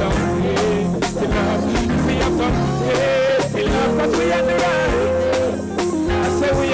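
Live reggae band playing a passage between sung lines: drums, bass and guitar keep the beat under a held, wavering melody line.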